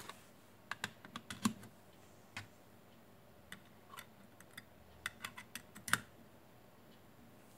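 A dozen or so light, scattered plastic clicks and taps from small USB gadgets being handled: a USB voltage/current meter pushed into a plug-in USB charger and a small USB load board fitted to its end. The sharpest click comes about six seconds in.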